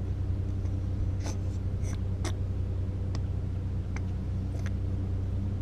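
An engine idling with a steady low hum, with a few short, light clicks and taps over it.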